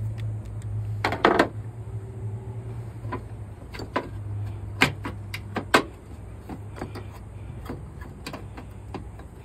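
Scattered metallic clicks and taps of a ratchet with a socket extension and a loosened bolt being worked out of a car's front bracket. There is a quick cluster of clicks about a second in, and a steady low hum underneath.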